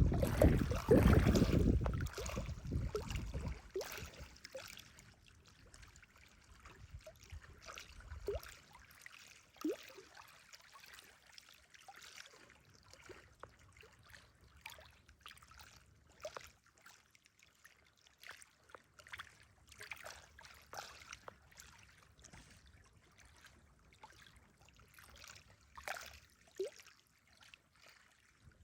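Small waves lapping and trickling at the water's edge of a reservoir, in faint irregular splashes. Wind buffets the microphone with a low rumble for the first few seconds.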